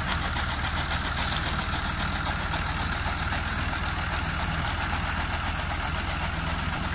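Farm tractor's diesel engine running steadily, driving a toka chaff cutter through its PTO shaft, with a continuous hiss from the cutter over the engine's even pulse.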